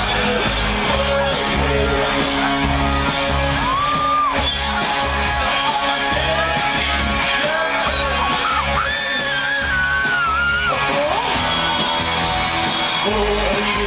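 Live electronic rock song played loud through a venue's sound system: a steady pulsing bass beat under a male singer, who holds long high notes about four seconds in and again from about nine to ten and a half seconds, with the crowd shouting along.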